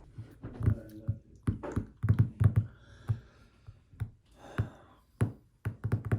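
A series of about a dozen irregular thumps and knocks, some with a brief ringing tone.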